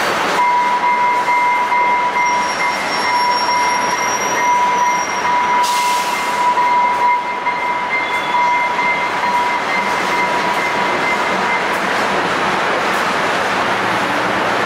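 A train rolling past with its wheels squealing on the rails: one steady high squeal that stops about eleven and a half seconds in, and a second, higher squeal joining from about two to five seconds in.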